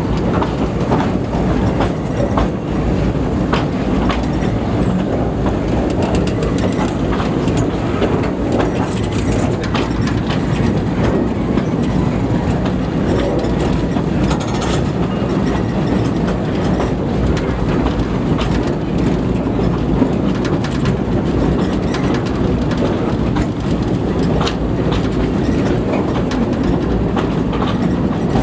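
Narrow-gauge railway carriage running steadily along the track: a continuous rumble of wheels on rail with frequent clicks and knocks from the rail joints and running gear.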